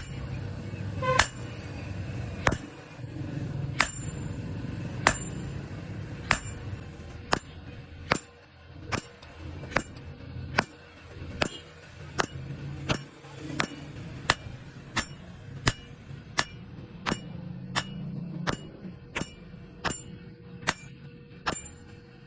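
Blacksmith's hammer striking metal on an anvil: a steady series of sharp, ringing blows, about one every second and a bit at first, quickening to nearly two a second.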